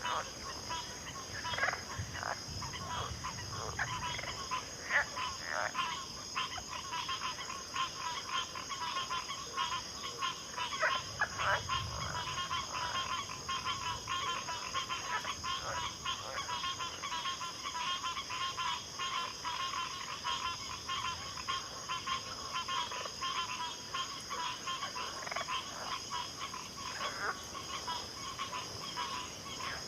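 A backwater chorus of many frogs calling densely and without pause, their short calls overlapping, over a steady high-pitched insect trill.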